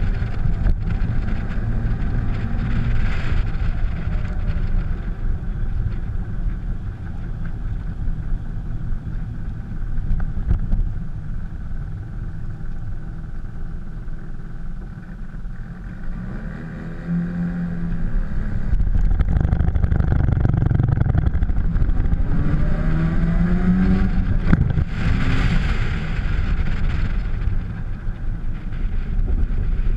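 Mazda RX-7's rotary engine running as the car drives, its pitch rising and falling a few times as it speeds up and slows. It is louder in the second half.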